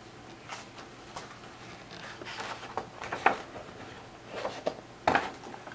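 Page of a picture book being turned by hand: soft paper rustling about two to three and a half seconds in, among light taps, and a sharper tap about five seconds in as the page is laid down.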